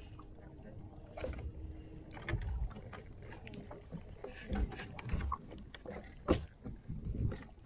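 Irregular water splashes and knocks around a small fishing boat, with scattered sharp clicks, the sharpest about six seconds in.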